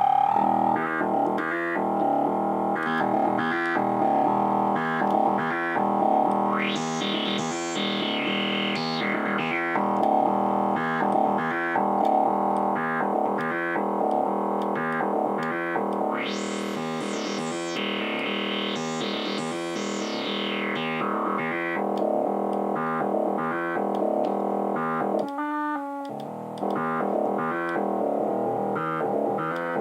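VST software synthesizer playing fast, rhythmic repeated notes over sustained chords. The sound twice brightens in rising filter sweeps, and briefly thins out a little before the end.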